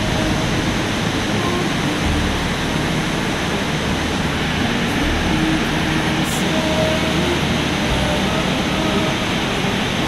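Steady rush of a waterfall pouring into a pool, a constant even roar with no let-up.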